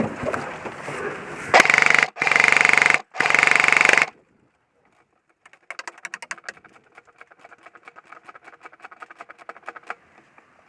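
Three loud, buzzing horn-like blasts, then a few seconds later a rapid, even rattle of clicks typical of full-auto airsoft gunfire.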